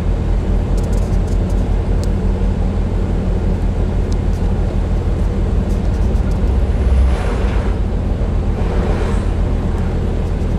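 Steady engine drone and road noise inside the cab of a moving vehicle, with a brief swell about seven seconds in.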